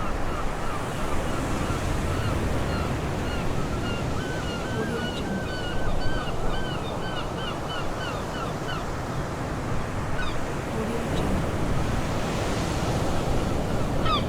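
Surf washing steadily on a beach while seagulls call. A long run of quick repeated calls lasts about the first nine seconds, and a single call comes again near the end.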